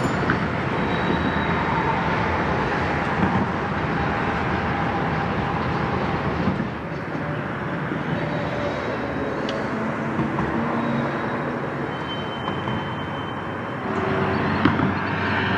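Freight train cars rolling past on a curve: a steady rumble of steel wheels on the rails, with a few faint high squeals.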